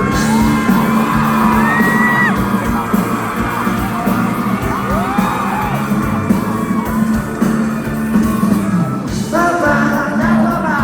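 A rock band playing live in a large hall, with a held low note under shouts and whoops from the audience. About nine seconds in, a fuller passage of the instruments comes in.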